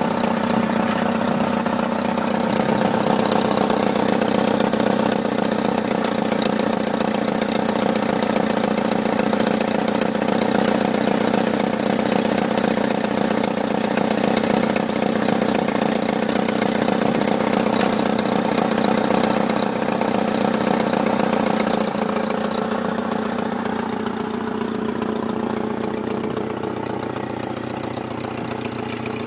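Mini four-cylinder petrol engine on a small dumper truck, idling steadily and heard close up, a little quieter over the last several seconds.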